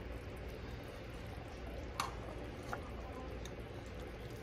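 A metal spoon stirring through vegetables and broth in a steel pot, with a light clink against the pot about two seconds in and a fainter one shortly after, over a low steady hum.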